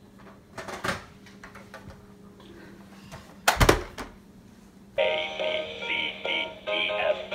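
Knocks and clatter as toys are handled, with one loud knock about halfway. About five seconds in, an electronic baby toy with push buttons starts playing a tune through its small speaker.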